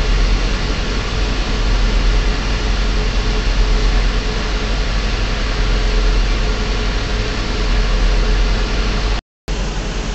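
Semi-truck diesel engine idling, a steady low rumble heard from inside the cab, with a faint steady hum on top. The sound cuts out completely for a moment about nine seconds in.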